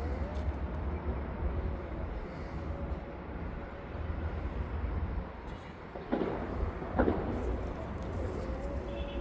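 Steady low background rumble of vehicle-like ambience, with two short sharp clicks about a second apart past the middle, the second one louder.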